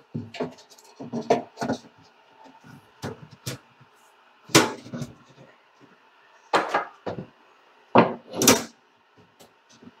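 Irregular knocks, clunks and scrapes from handling a metal microwave wall-mount track and a level against the wall and on the countertop. The loudest knocks come about four and a half seconds in and in a cluster around eight seconds in.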